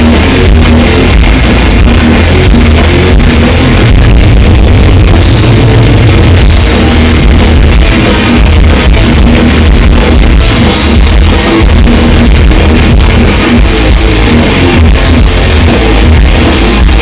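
Thrash metal band playing live at full volume: distorted electric guitars and a drum kit in a dense, driving wall of sound, recorded loud and saturated from the crowd.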